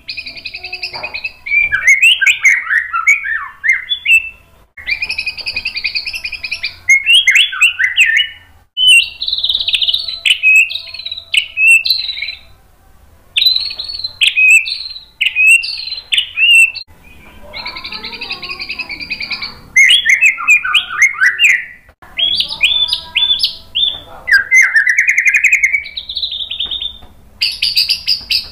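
White-rumped shama (murai batu) singing loud, varied phrases of quick chattering note runs and whistled glides, each lasting a second or two, with short pauses between them.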